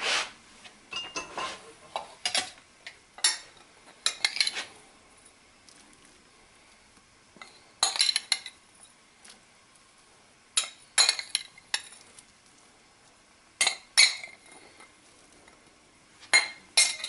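A metal spoon clinking and scraping against a ceramic bowl as grated cheese is knocked out into a pan of sauce, in scattered clusters of short sharp clicks with quiet gaps between.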